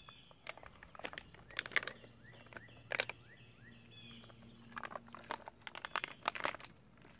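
Soft plastic water pouch crinkling and crackling in the hand as it is squeezed to force water through a squeeze-type water filter. The sound comes as irregular sharp crackles and clicks.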